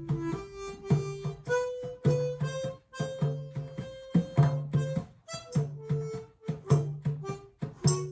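Harmonica playing a melody in long held notes over a Yoruba talking drum struck with a curved stick, its low drum tones coming about once a second, sometimes in pairs.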